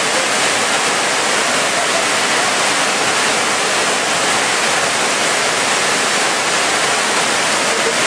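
Waterfall: white water pouring over rock ledges, making a loud, steady rushing noise with no let-up.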